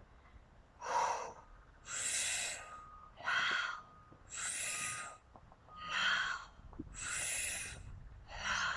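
A woman breathing forcefully and rhythmically, with seven audible breaths about one every second and a half, short sharp breaths alternating with longer ones.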